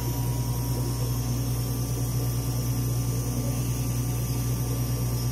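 Steady low hum with fan noise from a running Dimension RxL clinical chemistry analyzer, opened up for servicing.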